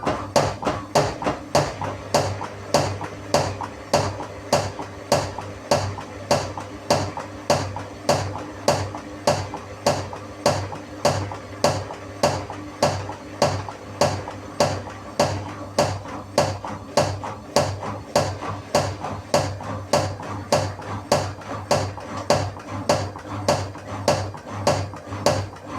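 Gorenje WA63101 washing machine on its spin cycle, its drum knocking inside the cabinet about twice a second over the steady hum of the motor. The knocking comes from dead shock absorbers.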